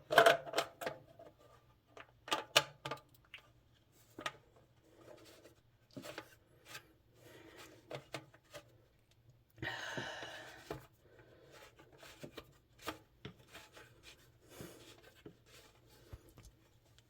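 Sink drain pipe parts being handled and fitted under a bathroom sink: scattered light clicks and knocks, with a brief scraping rub about ten seconds in.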